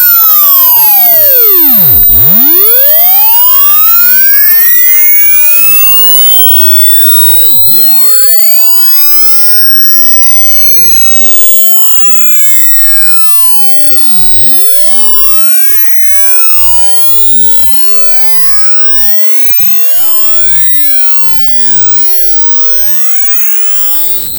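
Electronic synthesized tone gliding up and down in pitch over and over, with many fainter gliding tones crisscrossing it into a shrill, warbling tangle. It is loud throughout and drops somewhat in level about five seconds in.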